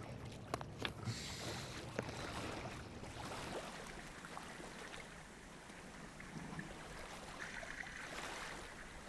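Steady outdoor wind and water noise, with a few light clicks in the first second.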